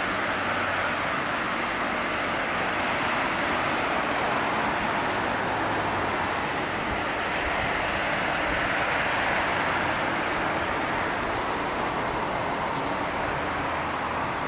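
Steady rushing noise like running water, even in level, with no distinct train sound standing out of it.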